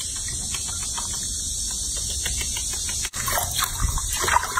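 Water in a sink being stirred and splashed by hands scrubbing a baby monkey: quiet lapping and dripping at first, then, after a sudden brief break about three seconds in, louder irregular splashing.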